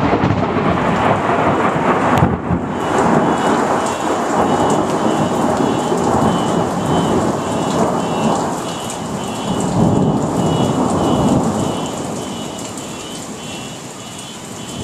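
Thunder and heavy rain: a sharp crack about two seconds in rolls into a long, loud rumble that swells again and then fades over the last few seconds, under steady pouring rain. A faint high beep repeats evenly through it from about three seconds in.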